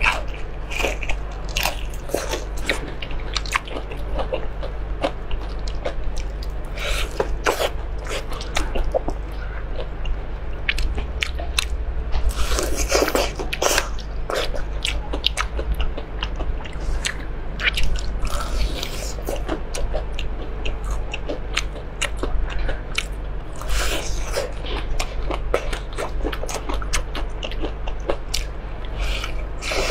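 Crunchy fried chicken drumstick bitten and chewed close to a clip-on microphone, with repeated crisp crackles of the breaded coating and chewing in between. A steady low hum runs underneath.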